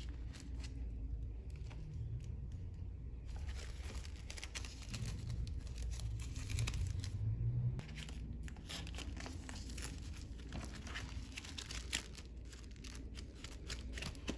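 Packaging being handled and opened: a run of crinkling, rustling and tearing with small clicks, busier from about three seconds in.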